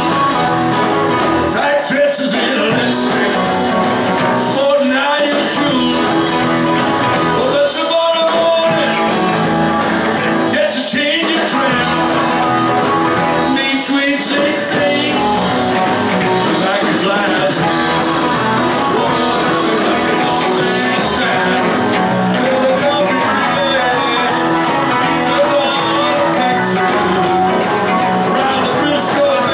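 Live rock and roll band playing: electric guitars, bass guitar, keyboard and drums, steady and loud.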